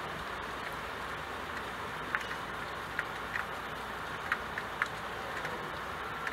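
Steady rain hiss with scattered single drops tapping sharply on a window pane, several distinct ticks over the even wash.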